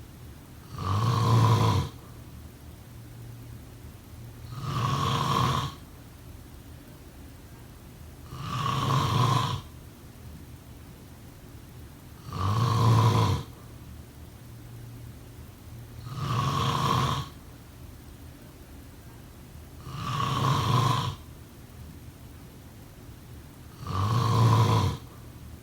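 A person snoring: seven snores at an even pace, one about every four seconds, each lasting about a second.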